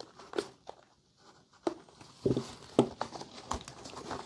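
Handling noise of a nylon dog collar and an e-collar mount being threaded through a bungee loop: scattered light rustles of webbing with a few small clicks and knocks.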